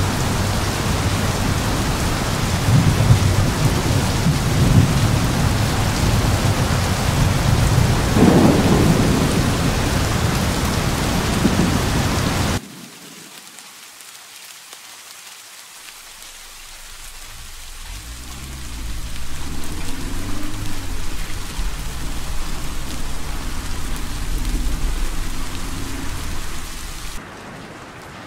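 Heavy rain falling steadily with low rumbles of thunder. About halfway through it cuts abruptly to lighter rain, under which a low rumble builds and rolls for several seconds, and near the end it cuts again to quieter rain.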